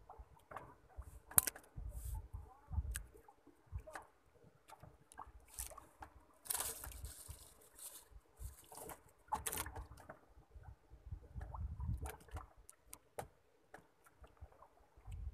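Scattered knocks, clicks and handling noises on a small fishing boat, with water sloshing against the hull. There is a longer hissing splash about six and a half seconds in and a shorter one about nine and a half seconds in.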